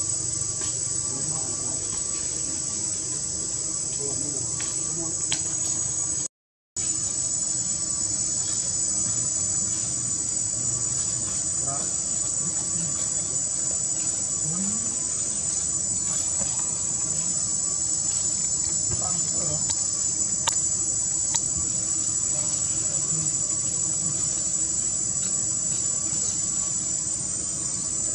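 Steady high-pitched insect chorus, a continuous drone that cuts out completely for about half a second near a quarter of the way in.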